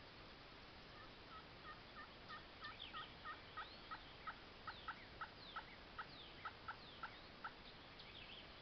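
Wild turkey yelping faintly: a long run of about twenty yelps, roughly three a second, growing louder and then fading away. Small birds chirp faintly over it.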